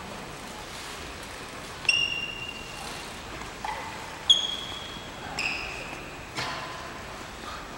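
Badminton doubles rally on a hardwood gym court: about five sharp, short squeaks of court shoes on the wooden floor, mixed with knocks of rackets on the shuttlecock, the loudest about two seconds in and just after four seconds.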